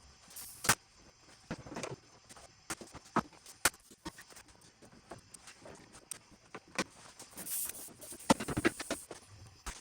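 Irregular knocks, taps and clatter with rustling between them, as of wooden cabinet parts being handled and set down, busiest near the end.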